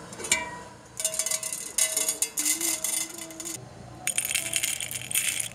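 Roasted coffee beans poured by the handful into the stainless-steel cup of a blade coffee grinder, rattling and clinking against the metal in about four bursts.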